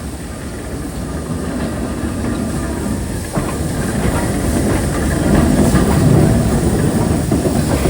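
Heritage steam train on the move, a steady rumble with some hiss that grows louder, and a single sharp knock a little over three seconds in.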